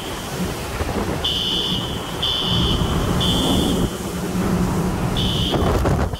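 Fire alarm beeping a single high tone in groups of three with a pause between groups, the temporal-three evacuation pattern. Underneath is the steady rush of hurricane wind and driven rain blowing through the parking garage.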